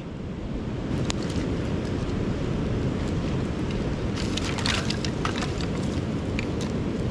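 Steady low rush of wind and surf, with wind buffeting the microphone. Over it, scattered crackles and clicks from a small fire of dry sticks being fed, with a cluster of clatter about four seconds in as sticks are stacked onto it.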